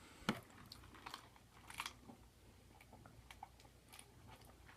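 Faint eating sounds: scattered small clicks and taps of a utensil against a leftovers container, with one sharper click about a third of a second in.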